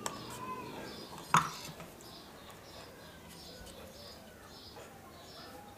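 A sharp knock about a second and a half in, with a lighter click at the start, over faint bird calls in the background.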